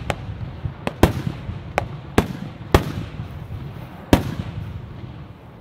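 Aerial fireworks shells bursting in the sky: about seven sharp bangs in the first four seconds, over a low rumble that fades near the end.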